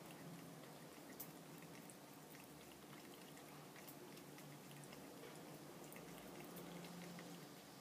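A cat lapping water from a thin trickle running out of a bathroom tap: faint, irregular wet clicks of its tongue and drips, over a faint low hum.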